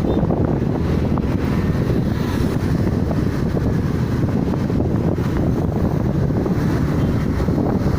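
Steady low wind rumble buffeting the microphone, with the noise of a moving vehicle on the road underneath.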